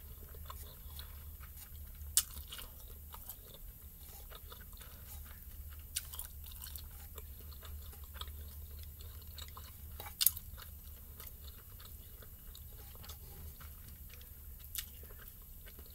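A person chewing a mouthful of spicy instant noodles: soft, wet mouth sounds with a few sharper clicks, over a low steady hum.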